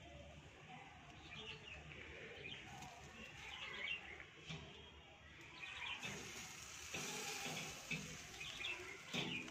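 Faint birds chirping, with a few light knocks in the last few seconds as the wire grill basket holding the fish is turned over.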